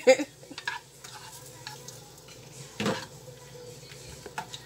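Shrimp sizzling in butter in a skillet while a spatula stirs them, with scattered clicks and scrapes of the spatula on the pan and one louder scrape about three seconds in.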